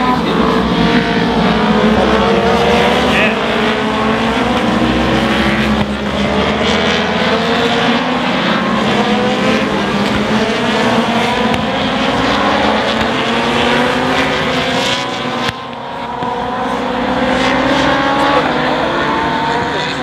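Several race motorcycles at racing speed, their engines overlapping, each revving up and dropping back as it changes gear. There is a short dip in the sound about three-quarters of the way through, then the engines carry on.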